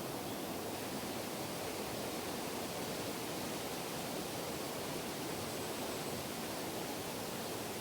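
Steady, even outdoor background noise, a featureless hiss with no bird calls standing out.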